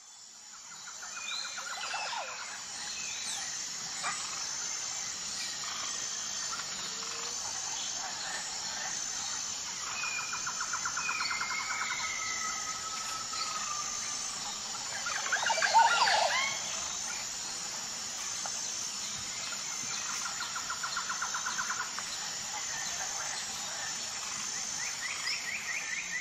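Natural birdsong ambience: several birds calling, with a rapid trill repeated three times and gliding whistled notes, over a steady high insect chirping that pulses evenly. The loudest moment is a short burst of bird calls about sixteen seconds in.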